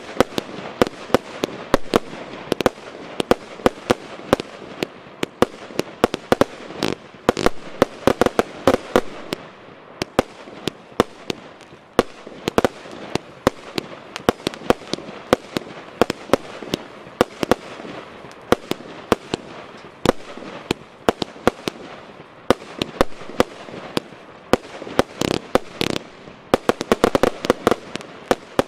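Piromax PXC213 Graviton consumer firework battery (144 shots, 25 mm calibre) firing a rapid stream of shots: sharp bangs several times a second over a continuous hiss and crackle, coming thickest in quick clusters near the end.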